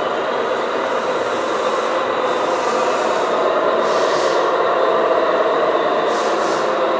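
Radio-controlled model truck, a Tamiya Globe Liner, driving slowly: a steady mechanical whine and rumble, with short hisses about two, four and six seconds in.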